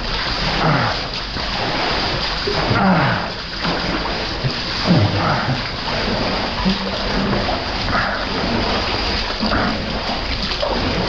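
Splashing and sloshing of a person moving upstream through a flooded river, over a steady rush of flowing water.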